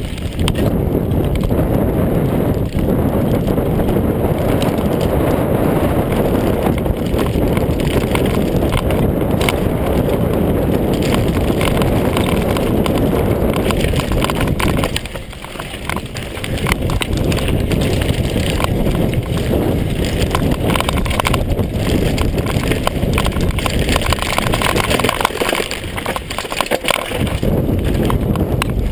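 Mountain bike, a Mondraker Kaiser downhill bike, descending a rocky gravel trail at speed: tyres rumbling and crunching over loose gravel, with the bike rattling over bumps and wind buffeting the microphone. The rumble eases briefly about halfway through and again near the end.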